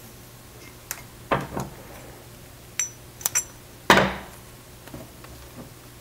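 Hands handling steel sprockets and a cutting blade while electrical tape is trimmed off the hub: a few small metallic clinks with a short high ring, two brief rasps a little over a second in, and a louder knock about four seconds in as something is set down on the wooden bench.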